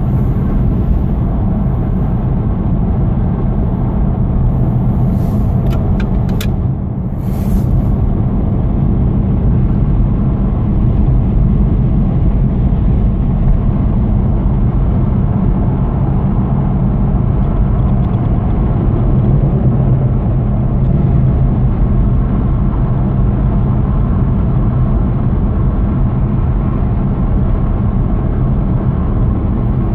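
Steady in-cabin road noise of a car cruising on a motorway: a continuous low rumble of tyres and engine, heard through the closed cabin. The rumble dips briefly about seven seconds in, with a few faint clicks around then.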